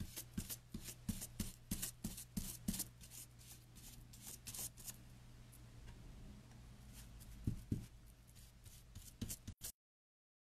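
Stiff natural-bristle flat brush dry-brushing paint onto a wooden cutout: quick scratchy strokes, several a second, for about the first half, then quieter. A soft thump comes near the end, and the sound cuts to silence shortly after.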